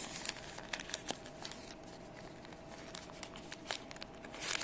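Folded origami paper units handled and slotted into one another: faint paper rustling with small scattered ticks, and a louder brief rustle near the end.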